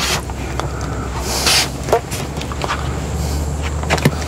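Hands handling plastic PEX water lines and wiring in an RV underbelly: scattered small clicks and rustles, with a brief hiss about one and a half seconds in, over a steady low hum.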